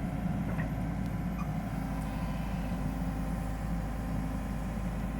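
Diesel engine of a Komatsu PC78UU excavator running steadily.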